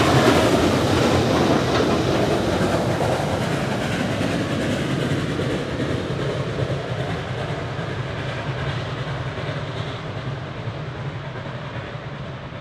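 Beyer-Garratt steam locomotive 6029 and its train running over a steel trestle bridge and moving away, the sound fading steadily.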